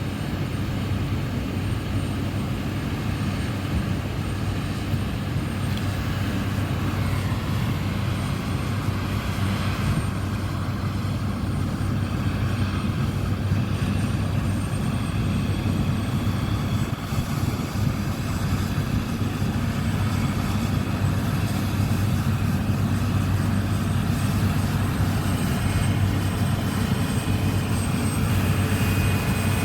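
CLAAS Lexion 6700 combine harvester running steadily in wheat, a continuous engine drone with a strong low hum.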